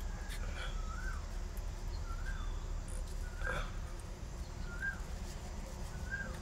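A small bird chirping: five or six short chirps, each rising then falling in pitch, about one a second, over a steady low rumble.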